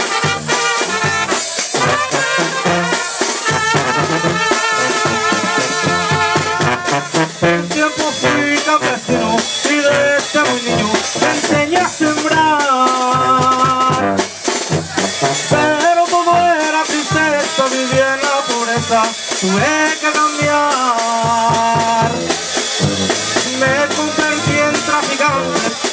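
Live tamborazo band playing: trumpets carry the melody over a sousaphone bass line, with the steady beat of a bass drum (tambora) and cymbal.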